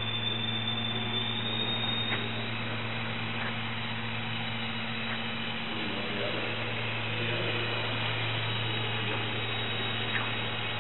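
Electric motor and propeller of a small foam RC autogyro running steadily in flight, a constant hum with a noisy whir over it.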